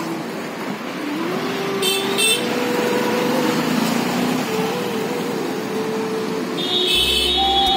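Road traffic: vehicle engines running and passing, with one engine note rising and falling in pitch over a steady background of traffic noise. Two brief high-pitched chirps come about two seconds in.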